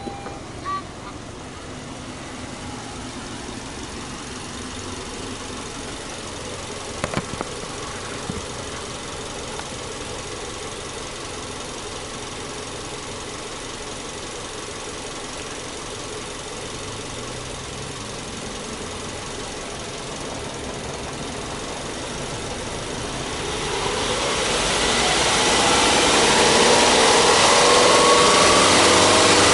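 Subaru Legacy's EJ25 2.5-litre flat-four boxer engine idling steadily, with a few short clicks about seven seconds in. Toward the end the engine sound swells and holds noticeably louder.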